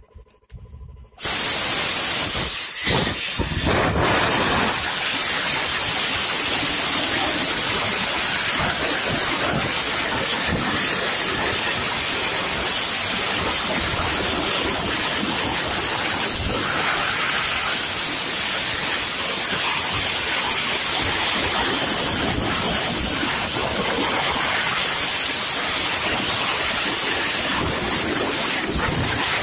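Sandblasting gun blasting grit at a rusty steel tank with compressed air: a loud, steady hiss that starts abruptly about a second in and holds unchanged.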